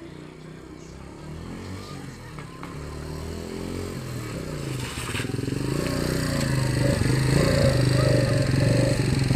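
Rusi 125 motorcycle's single-cylinder engine running and growing steadily louder, with a steady pitch.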